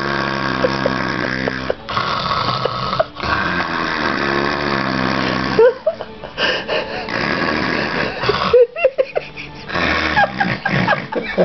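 A person imitating loud snoring with the voice: about five long snore breaths in a row with short pauses between, and a few short squeaky glides between the later ones.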